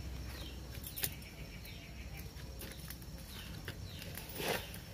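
Small birds chirping again and again in short falling notes, with one sharp click about a second in and a brief rustle near the end as the leaf-wrapped pitha is lifted from the iron pan.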